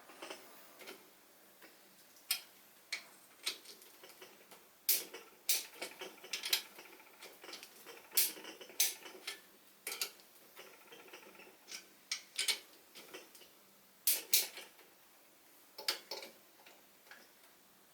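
Sharp metallic clicks and light knocks at irregular intervals, from hand tools and parts being worked on a Citroën GS/GSA engine during reassembly.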